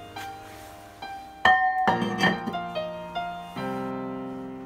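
Background instrumental music: a light melody of piano-like notes.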